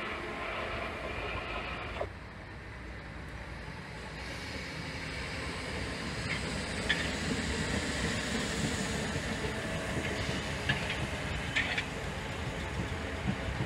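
South Western Railway suburban electric multiple unit running along the adjacent line, a steady rumble of wheels on rails building up after a few seconds, with a few sharp clicks from the wheels over the track.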